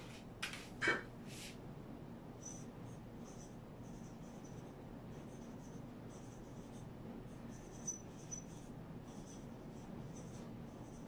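Marker pen squeaking on a whiteboard in many short strokes as a heading is written, faint. A few sharp clicks come in the first second and a half, the loudest about a second in.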